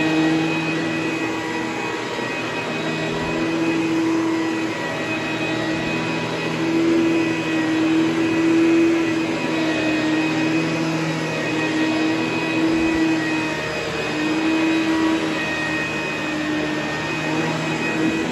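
ProTeam commercial upright vacuum cleaner running steadily as it is pushed over carpet: a constant motor hum and whine over a rush of air, swelling slightly now and then.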